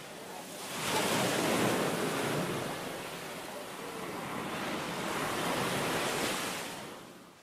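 A rushing wash of noise that swells about a second in, eases off, swells again around five seconds and fades out near the end.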